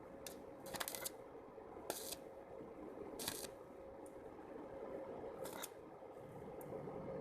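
Small 12-volt DC motor of a homemade mini water pump running with a faint steady hum, with half a dozen short, sharp bursts of noise over it.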